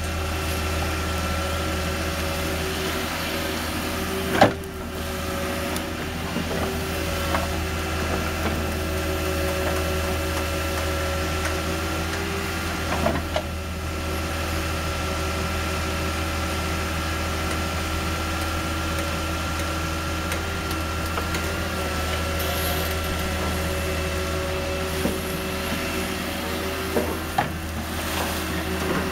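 Caterpillar long-reach tracked excavator running steadily as it digs, with a thin steady whine over the engine. A sharp knock comes about four seconds in, with a few smaller knocks later.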